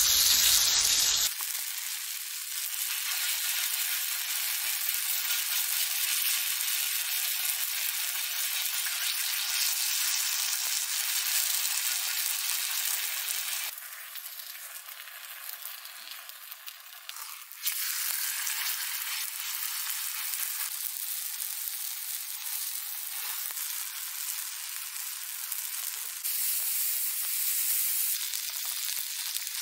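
Potato pancakes frying in oil on a griddle pan over a portable gas stove: a steady sizzle that drops quieter for a few seconds in the middle and changes level at cuts between clips, with meat sizzling on the pan near the end.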